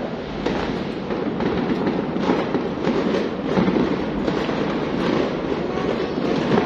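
Fireworks going off continuously: a dense, unbroken run of many pops and bangs with none standing out.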